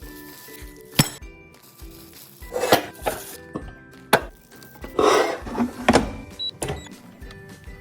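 Background music, with two sharp knocks and a few short scraping noises over it.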